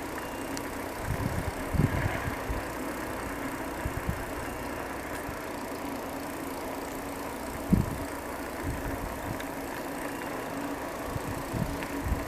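Steady rolling hum of a bicycle ride, broken by scattered low thumps, the strongest about eight seconds in.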